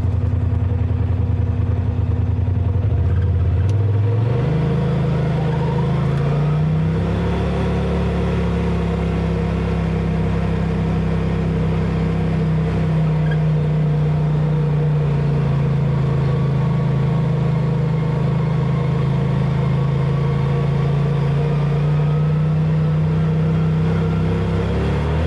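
A 4x4's engine heard from inside the cab as it drives. The engine note rises in two steps in the first seven seconds, holds steady at cruising speed, and drops near the end, over a steady rush of wind and tyre noise.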